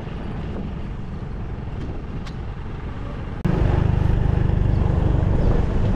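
Motor scooters riding along an island road, a steady low rumble of engines and road noise. It jumps abruptly louder about three and a half seconds in.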